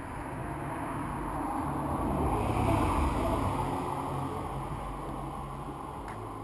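A car passing on a wet road: tyre hiss and engine hum swell to a peak a little before halfway and then fade as it moves away.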